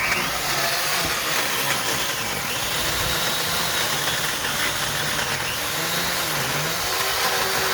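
Worx 14-inch electric chainsaw running steadily, its motor pitch wavering, with one brief dip past the middle.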